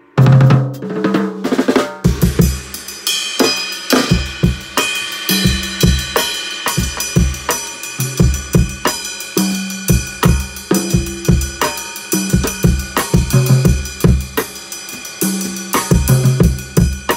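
Acoustic drum kit played in a steady groove: bass drum, snare and tom hits, with a loud hit at the very start and cymbals ringing out from about three seconds in.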